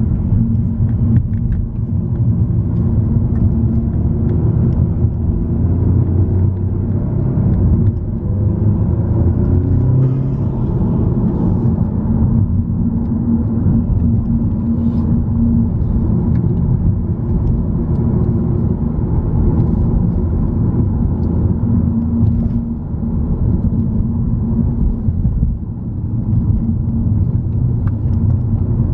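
Car engine and road noise heard from inside a moving car: a steady low rumble, with the engine note rising and falling around eight to eleven seconds in as the revs change.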